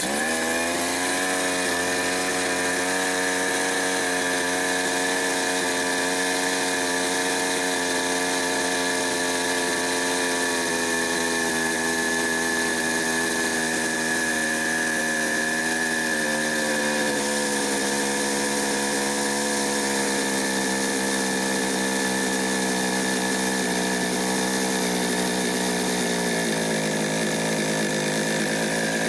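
Mil Germany two-stroke chainsaw engine catching on a pull of the starter cord and running at a high, steady idle. Its speed drops a step about 17 seconds in and again near 26 seconds as the idle screw is turned down, to tame an idle the owner finds too fast.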